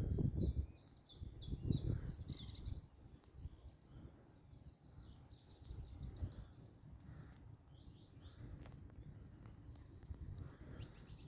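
Wild songbirds singing: a run of short, quick high notes, then brief high trills in the middle and near the end.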